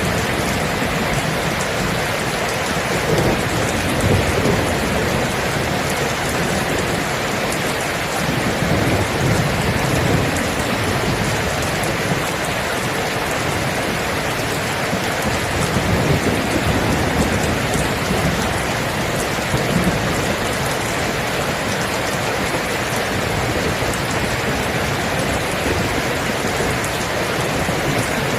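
Steady rain falling hard, with low rumbles of thunder swelling up several times.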